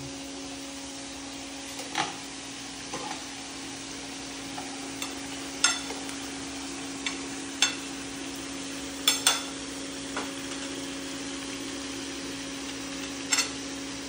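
Pork belly sizzling in a pan, with a steady hum underneath. Sharp clinks of utensils come now and then, about seven in all.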